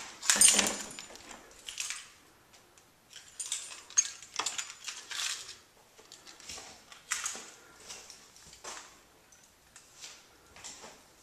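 Irregular light clicks, clinks and rustles of handling and movement, loudest in the first second, while a handheld camera is carried through a house.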